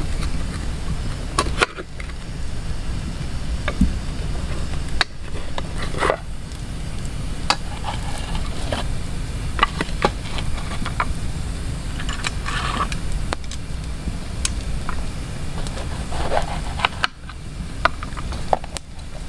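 Cooking gear being handled beside a wood campfire: scattered knocks, clinks and scrapes of pans and utensils, with the fire crackling, over a steady low rumble.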